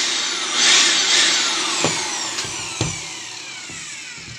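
INGCO AB4018 400 W electric blower-vacuum given a short burst on its trigger about a second in, then released, its motor winding down with a falling whine. Two sharp knocks come around two and three seconds in.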